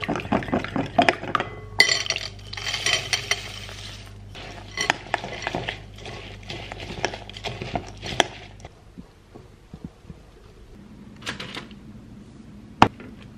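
Metal spoon beating egg and honey in a glass bowl, clinking quickly against the glass, then stirring an oat cookie mixture with irregular clinks and scrapes, with a brief rustle about two seconds in. Near the end it quietens to a few clicks and one sharp tap as dough is spooned onto baking paper.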